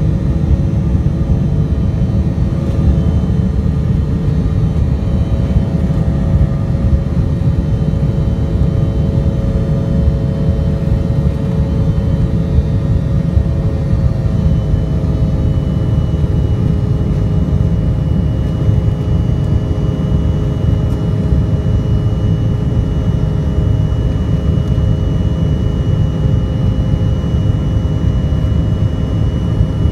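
Steady cabin roar of an Embraer 175's GE CF34-8E turbofans and airflow during the climb after takeoff, heard from inside the cabin. A few steady engine tones sit over the roar, and a faint high whine becomes steadier about halfway through.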